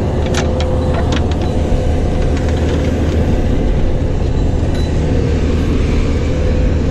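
Diesel engine of a John Deere 310SJ backhoe running steadily under work while digging for drainage tile, a deep, even drone with a few short clicks in the first half.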